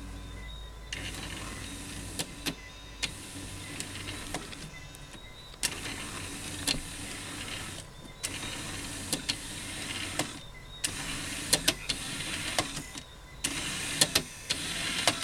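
Two small geared DVD-drive sled motors whirring as they drive their carriages. Each motor is switched on and off every few milliseconds by an Arduino motor shield to set its speed. The whirring stops briefly a few times, with sharp clicks throughout.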